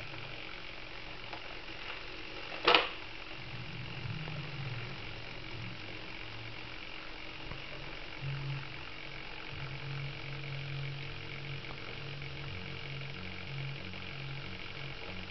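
Servo-driven retractable landing gear of an RC electric ducted-fan jet lowering slowly, its servo speed held down by a custom control circuit. It makes a faint steady whine with a low buzz under it, and there is one sharp click about three seconds in.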